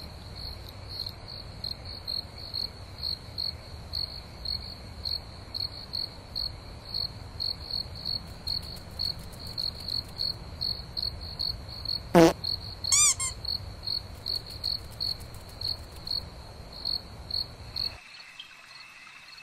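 Cricket chirping steadily, about three chirps a second, as night ambience; it stops suddenly near the end. About two-thirds of the way through, a brief sharp high call rises quickly in pitch and is followed by a second, falling call.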